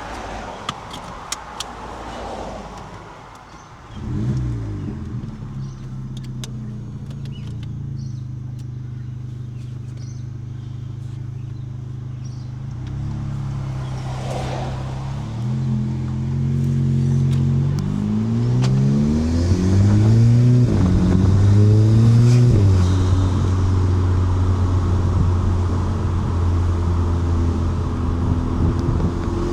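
Volkswagen Golf Mk7 GTI's turbocharged 2.0-litre four-cylinder, with an ARM 4.5-inch downpipe, heard from inside the cabin with the windows down. After a few clicks it comes in suddenly about four seconds in and runs steadily. It then pulls away, its pitch climbing and dropping back several times as it shifts up, and settles into a steady drone near the end.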